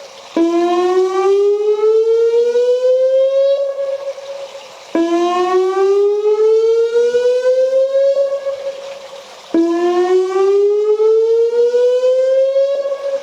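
Whelen WPS 2905 electronic siren sounding a repeating rising wail. Three times, the tone cuts in low, climbs steadily for about three and a half seconds, holds briefly and fades away before the next rise.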